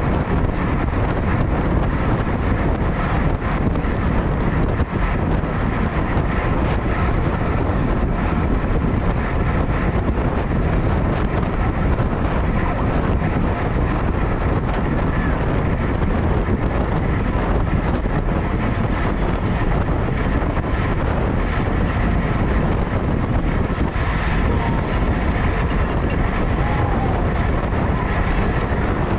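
Steady wind rushing over the microphone of a camera mounted on a racing bicycle at race speed.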